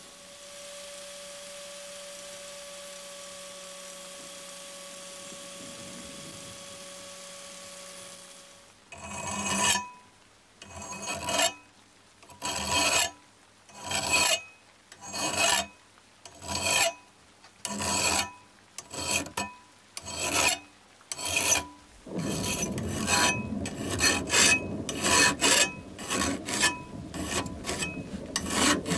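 Rasping hand strokes of an abrasive tool: slow single strokes, about one every second and a quarter, start about nine seconds in, then turn quicker and run together near the end. Before the strokes, a faint steady hum.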